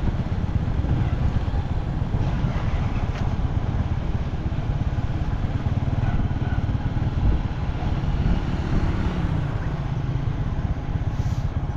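A motor vehicle's engine running steadily, a heavy low rumble.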